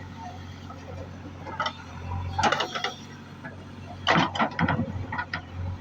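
Backhoe loader's diesel engine running steadily, with bursts of clattering knocks from the machine at work, the loudest about two and a half seconds in and again around four seconds in.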